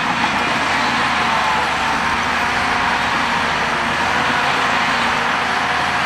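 Shantui crawler bulldozer's diesel engine running steadily as the machine works, pushing earth.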